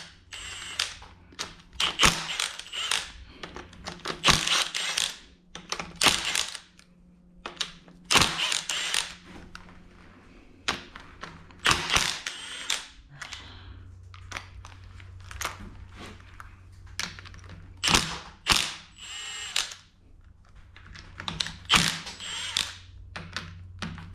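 Hand ratchet wrench clicking in repeated runs of strokes as bolts are worked loose on a Toyota 1JZ engine.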